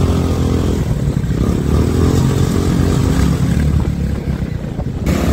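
Several motorcycle engines running at low speed close by, their pitch rising and falling as they rev.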